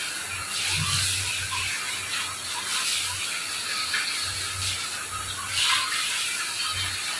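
Tap water running into a stainless steel sink and splashing over leafy greens, with the wet leaves rustling as they are rubbed clean by hand.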